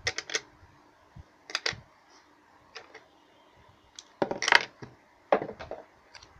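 Hands handling a small tape-wrapped lithium-ion battery on a hard tabletop: a series of short clicks and taps in irregular clusters, the loudest and longest a little past four seconds.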